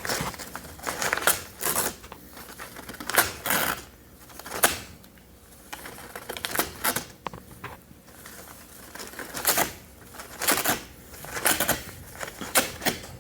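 A pet rabbit ripping and chewing packaging material: about a dozen irregular bursts of tearing and rustling with short pauses between.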